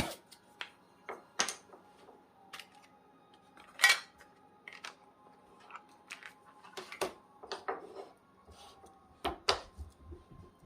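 Irregular clicks and knocks of small hard objects being handled and set down, about a dozen in all, the loudest about four seconds in.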